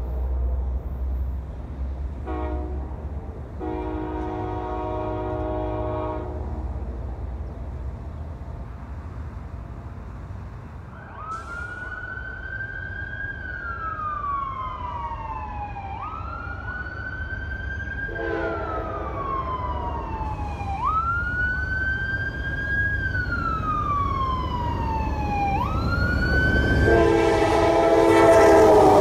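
Train horn sounding several blasts, a short one and a longer one in the first six seconds and a long one building near the end, over a steady low rumble. Through the middle a siren wails, rising quickly and falling slowly in cycles about every five seconds.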